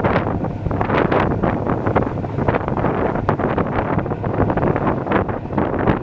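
Wind buffeting the microphone on the deck of a moving passenger boat, in irregular gusts, over the low running of the boat underneath.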